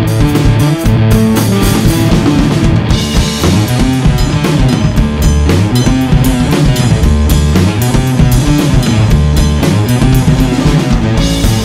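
Rock band playing: drum kit and electric bass with guitar over a steady beat.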